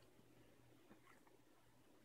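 Near silence: room tone with a faint low hum and a couple of very faint soft ticks about a second in.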